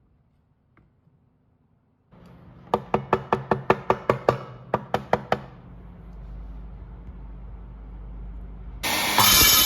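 A run of about a dozen sharp knocks, roughly four a second, then a low rumble, and near the end a power saw starts up loudly.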